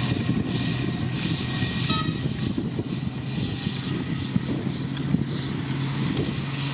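Diesel engine of heavy road-building machinery running steadily, a constant low hum over a rumbling mechanical clatter.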